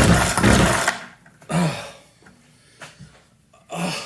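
Small two-stroke engine of an old Craftsman chainsaw catching and running briefly after a pull-start, then dying about a second in. It fails to keep running. Two short, softer sounds follow.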